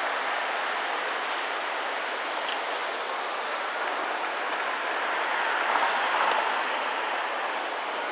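Steady rushing noise of the river flowing below the bridge mixed with road traffic, swelling briefly about six seconds in as a vehicle passes.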